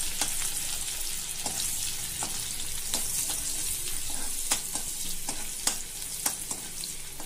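Ginger, garlic and green chillies sizzling in hot oil in a kadai, stirred with a spoon that clicks against the pan at irregular moments. They are being fried until their raw smell goes.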